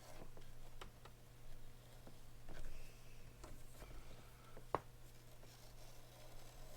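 Faint scattered clicks and small knocks of hand tools and metal parts being handled, with one sharper metallic click a little under five seconds in, over a steady low electrical hum.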